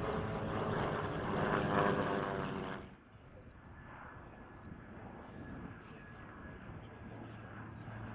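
Steady drone of a formation of piston-engined propeller aircraft flying past. It cuts off abruptly about three seconds in, giving way to quieter outdoor background noise with a faint low hum near the end.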